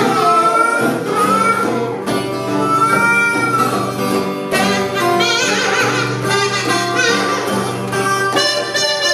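Acoustic pre-war blues instrumental break: acoustic guitar strumming, with a harmonica and a buzzing metal kazoo (kazobo) carrying the melody over a djembe hand drum.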